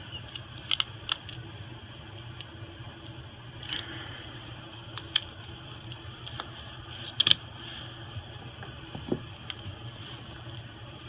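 Scattered light clicks and taps of small repair tools and phone parts being handled during an iPhone SE teardown, the sharpest pair about seven seconds in, over a steady low hum.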